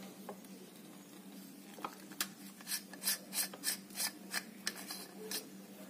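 Metal mesh grille of a MiPRO MM-107 handheld microphone being unscrewed from its body by hand: a run of short scraping clicks from the thread and grip, about three a second, starting about two seconds in.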